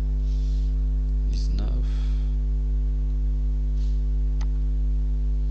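Steady electrical mains hum, a low buzz with a ladder of overtones. A short vocal murmur comes about a second and a half in, and a single click about four and a half seconds in.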